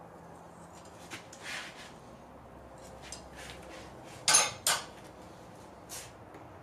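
Steel blacksmithing tools (tongs, a handled punch, a hammer) clinking and clanking against each other and the anvil as they are set down and picked up. A few light knocks, then two loud, sharp metal clanks in quick succession just past halfway, and a smaller knock near the end.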